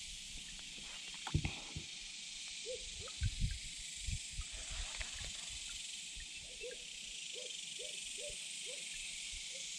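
Steady high-pitched insect chorus with a few low thumps about a second and a half in and again around three and a half seconds. In the second half, a run of short, evenly spaced low animal calls comes about twice a second.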